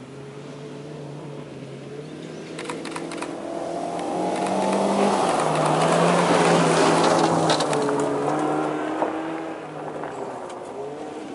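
Honda Civic hatchback's engine running hard as the car drives past, growing to its loudest midway as it passes and fading as it moves off. Loose gravel crackles and pings under the tyres.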